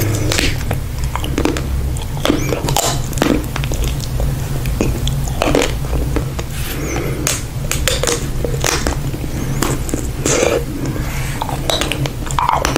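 Close-miked biting and chewing of a Magnum Mini Almond ice cream bar: the chocolate-and-almond shell cracking between the teeth and the ice cream being chewed, with wet mouth and lip sounds in irregular bursts.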